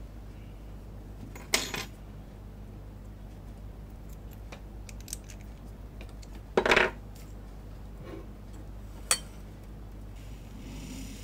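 Small metal clinks at a jeweler's bench, as hand tools and metal parts are picked up and set down: three clear clinks about a second and a half in, in the middle (the loudest), and near the end, with a few faint ticks between them.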